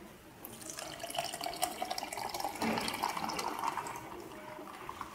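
Milk tea pouring from a cocktail shaker into a plastic cup: a steady stream of liquid splashing as the cup fills, with scattered small clicks.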